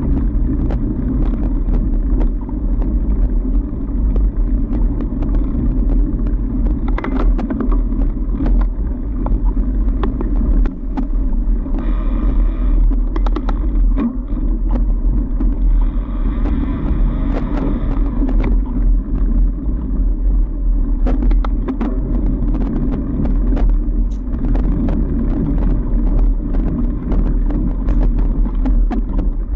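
A fat bike being ridden on a packed-snow trail: a steady low rumble from the rolling bike, with frequent clicks and rattles as it goes over bumps. Two short hissing stretches come about 12 and 16 seconds in.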